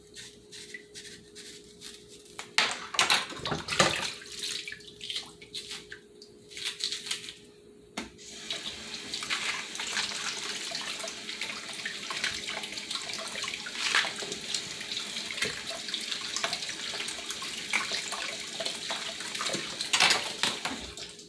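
Small splashes and scrapes as green plantains are peeled by hand in a pot of water in a kitchen sink. About eight seconds in, the faucet is turned on and runs steadily into the sink.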